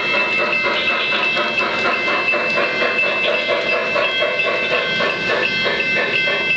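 Lionel O-gauge model passenger cars rolling over three-rail track, with a steady run of clicks from the wheels over the rail joints and a steady high whine over the rolling noise.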